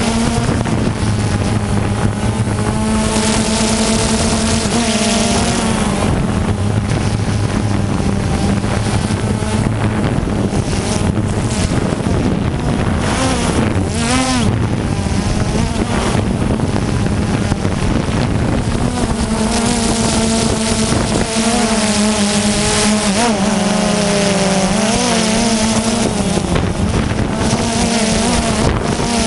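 DJI Phantom 2 quadcopter's electric motors and propellers humming, heard from the camera on board, with wind rushing over the microphone. The hum holds a steady pitch, then wavers and glides about halfway through and again near the end as the motors change speed.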